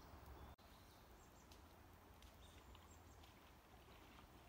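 Near silence: faint outdoor ambience with a few faint, short high-pitched ticks, and a brief dropout about half a second in.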